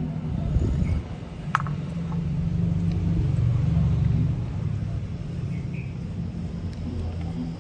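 Low rumble of a vehicle engine that swells to its loudest about three to four seconds in and then eases off, with a single sharp knock about one and a half seconds in.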